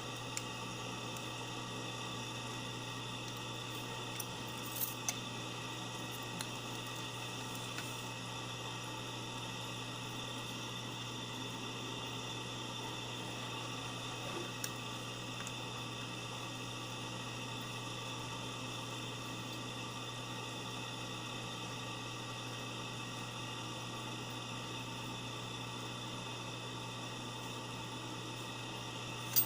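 Steady low hum and hiss, with a few faint clicks about four to five seconds in and again around fifteen seconds.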